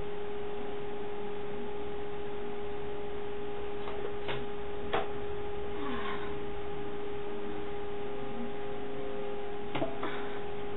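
Steady electrical hum, one held tone with a fainter higher one above it, with a few faint knocks about four, five and ten seconds in.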